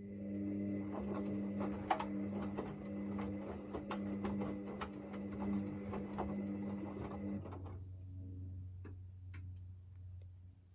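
Hoover VisionDynamic front-loading washing machine running, a steady electric hum with scattered clicks and knocks. About seven seconds in the higher part of the hum and the clicking stop, leaving a lower hum.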